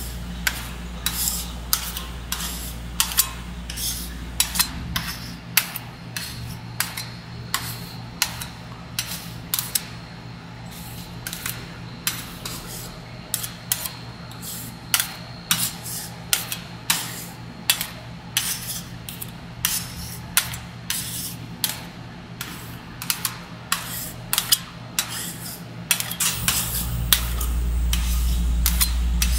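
Metal spatulas clacking and scraping on the frozen metal plate of a rolled ice cream machine, sharp hits about two a second at an uneven pace, over a steady low hum. A deeper rumble under it drops out about five seconds in and comes back near the end.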